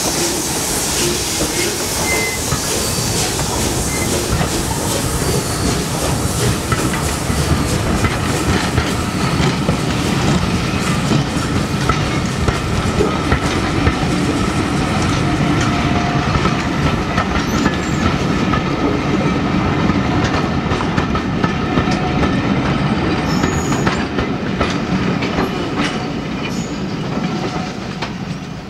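Bulleid Pacific steam locomotive no. 34053 'Sir Keith Park' passing close with steam hissing, then its train of coaches and wagons rumbling by, wheels clicking over the rail joints with a thin squeal. The sound fades near the end as the train draws away.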